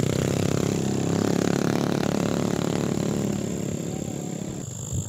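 Electric motor and propeller of a homemade high-speed RC flying-wing plane, droning steadily as it flies over, easing off slightly near the end.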